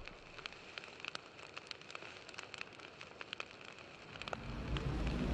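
Faint crackling fire sound effect: scattered sharp pops and snaps over a soft hiss, with a low rumble swelling up near the end.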